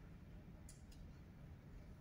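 Near silence: faint indoor room tone with two soft clicks close together a little past halfway.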